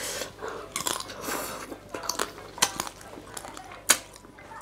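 A person eating close to the microphone, chewing and slurping thin noodles. A few sharp clicks come through, the loudest near the end.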